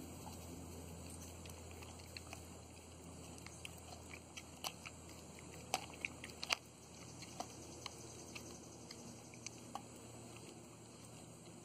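Doberman chewing soft white meat out of a halved young coconut: faint, irregular clicks and crunches, with a few louder snaps about halfway through.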